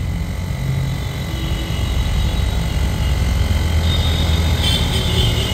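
Ather portable electric tyre inflator running steadily with a low, even drone as its compressor pumps air into a scooter tyre.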